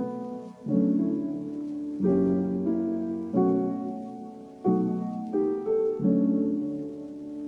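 Background music: a slow piano piece, chords struck about every second and a half and each left to fade.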